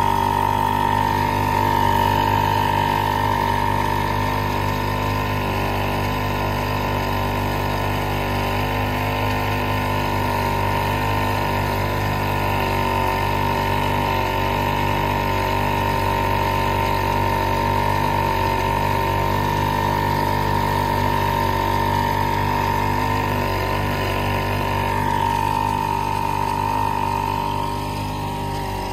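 1948 Evinrude Sportsman 1.5 hp two-stroke outboard motor running steadily under way, with a steady high-pitched whine over the engine note and water rushing in the wake. It drops a little in level near the end.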